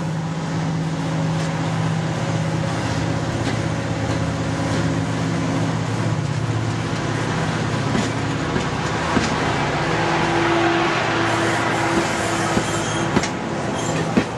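Class 55 Deltic diesel locomotive's Napier Deltic engines running as it draws slowly into the platform: a steady engine drone whose note shifts about halfway through, with a rising hiss and rattle and a few sharp clanks in the second half.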